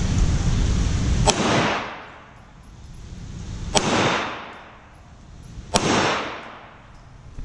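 Three pistol shots about two and a half and then two seconds apart, each a sharp crack followed by a long echo through the indoor range.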